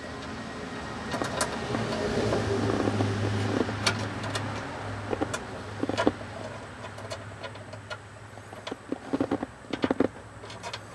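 Small metal clicks and rattles of tools and screws as the 7mm upper screws of a dash ashtray are fitted, over a low steady hum; a quick run of clicks comes near the end.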